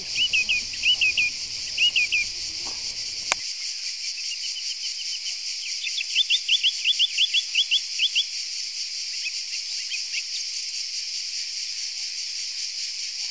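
A steady, high-pitched, rapidly pulsing chorus of insects in the scrub, with runs of short rising chirps over it near the start and again about six seconds in. A low rumble in the first few seconds stops abruptly with a click.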